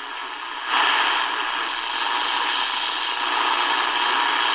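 Shortwave static from the Tecsun DR-920C portable radio's speaker, tuned around 5.25 MHz: a steady hiss that jumps louder about two thirds of a second in.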